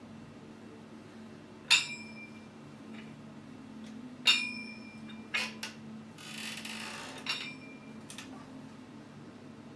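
Iron dumbbell plates clinking with a short metallic ring, two sharp loud strikes as a pair of plate-loaded dumbbells is picked up, followed by a few lighter knocks and a brief rustle as they are brought up to press on a bench. A low steady hum sits underneath.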